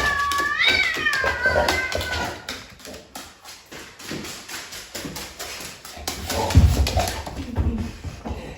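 Cat meowing: a drawn-out meow that rises and then falls away, ending a couple of seconds in. Soft taps and a few dull thumps follow.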